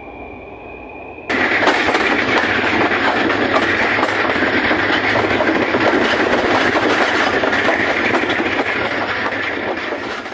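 Train running along track, a loud, dense rattling clatter that starts abruptly about a second in and eases slightly near the end. Before it there is only a faint, steady high whine.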